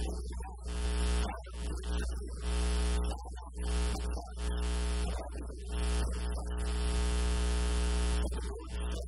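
A man's voice reading aloud, in phrases broken by short pauses, made buzzy and hard to make out by a loud steady electrical hum.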